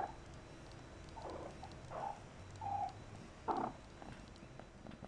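Persian cats making about five short, faint mews and chirps, each a fraction of a second long, spread over a few seconds.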